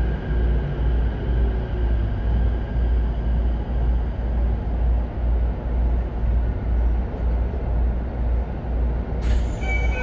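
Interior running sound of a Keikyu 1000-series electric train car braking to a stop, a steady low rumble throughout. The Mitsubishi full-SiC VVVF inverter's falling whine fades out in the first two seconds. Near the end the doors open, with a sudden rise in hiss and high tones.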